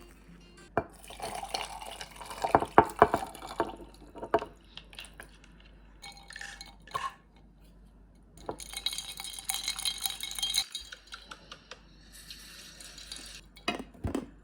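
Dishes and utensils clattering and clinking in a kitchen. This is followed by two stretches of steady hiss, like water running, with a few more knocks near the end.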